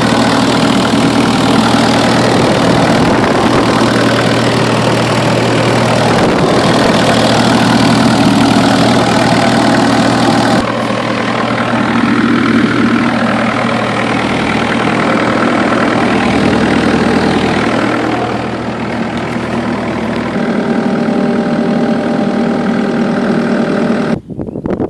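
Kubota U45-3SS mini excavator's diesel engine running steadily. Its sound shifts a few times and breaks off suddenly near the end.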